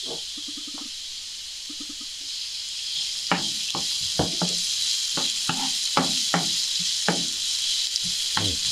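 Chopped onion sizzling in oil in a non-stick frying pan while a wooden spoon stirs it, knocking against the pan about twice a second. The sizzle gets louder about three seconds in.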